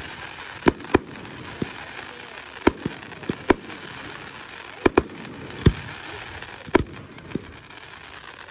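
Aerial fireworks bursting: about a dozen sharp bangs at uneven intervals, some in quick pairs, over a steady background hiss.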